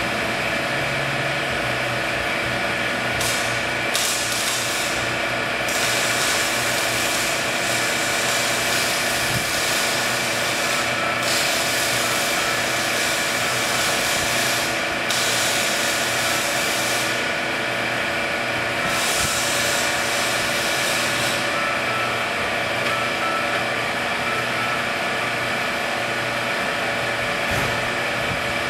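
Steady hum of the test rig's servo-hydraulic loading system running, with several fixed tones. Stretches of hiss come and go every few seconds.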